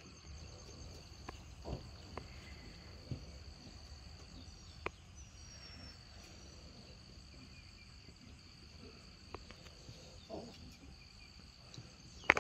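Faint outdoor ambience dominated by a steady high-pitched insect drone. A few faint short sounds break in, and there is a sharper knock near the end.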